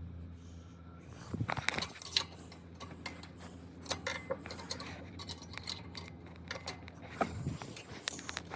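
Irregular metallic clinks and rattles from about a second in: a steel center-stand spring and hand tools being handled while the spring is fitted to the stand.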